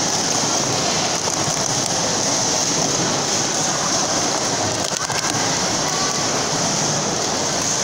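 Plastic sport-stacking cups clicking and clattering rapidly as they are stacked and unstacked, over the steady din of a hall where other tables are stacking too.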